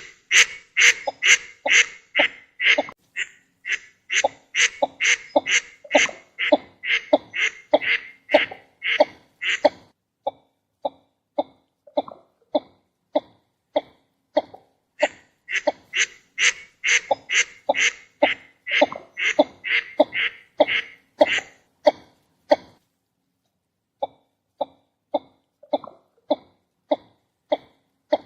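Northern shoveler duck calling: a long run of short, harsh notes at about three a second. The notes grow fainter for a few seconds in the middle, break off briefly near the end, and resume more quietly.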